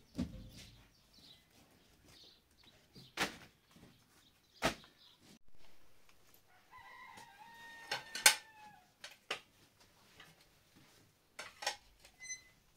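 A rooster crows once, a call of about a second and a half that dips at its end, amid a few scattered sharp knocks. The loudest knock falls just as the crow ends.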